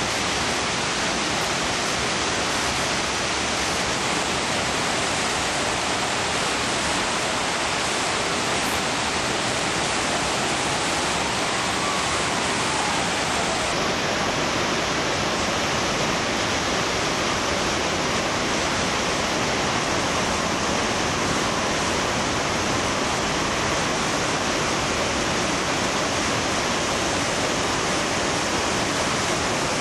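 Steady rush of water pouring over a river weir and down a fish pass, churning white water below.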